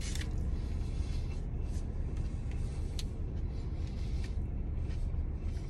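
Steady low rumble of a car idling, heard from inside the closed cabin.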